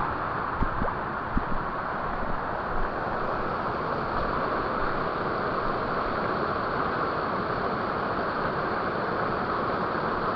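Creek water running steadily over rocks, with a few light knocks in the first couple of seconds.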